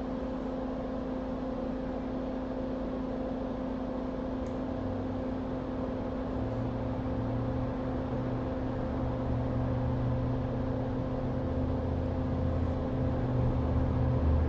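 Steady whirring hum of bench equipment, a small fan or motor, holding two fixed tones. A low rumble builds beneath it from about five seconds in.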